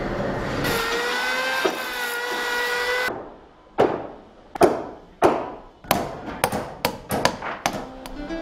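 An angle grinder whines steadily for about two and a half seconds. It then gives way to about a dozen sharp hammer blows on timber, coming faster near the end, as planks are fixed to a wooden hull's ribs.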